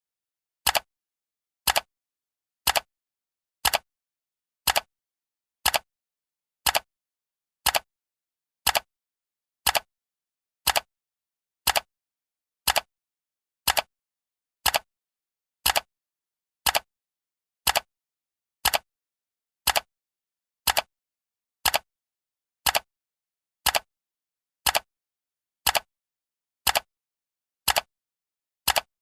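Clock-tick sound effect: one short, sharp tick every second, evenly paced, with silence between ticks.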